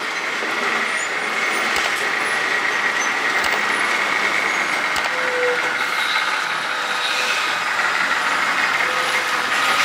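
An overloaded diesel lorry running steadily as it descends a hairpin bend on a steep ghat road, with a few brief clicks along the way.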